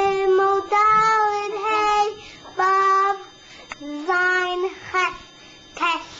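A young boy singing in a high voice, in short phrases of held, steady notes with brief pauses between them.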